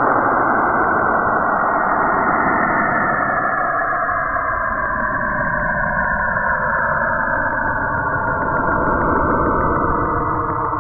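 Saturn's radio emissions, recorded by the Cassini spacecraft's Radio and Plasma Wave Science (RPWS) instrument and shifted down into hearing range. The sound is a loud, dense, eerie noise with several tones sliding slowly downward through it.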